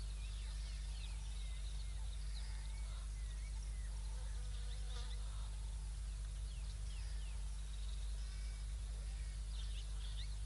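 Birds chirping and calling from several directions: many short rising and falling whistles and wavy phrases, over a steady low hum.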